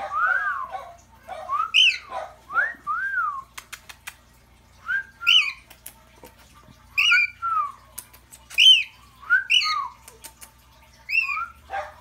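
A cockatiel whistling and chirping: a string of short, high falling chirps alternating with lower rising-and-falling whistled notes, the two coming in turns.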